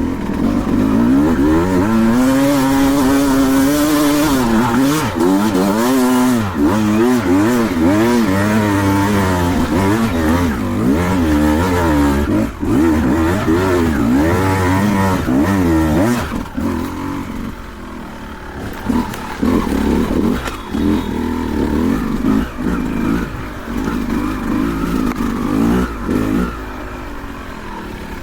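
Two-stroke enduro dirt bike, a Beta 200, under hard riding: the engine revs rise and fall continually as the throttle is worked, then about halfway through it drops to lower, choppy bursts of short throttle blips.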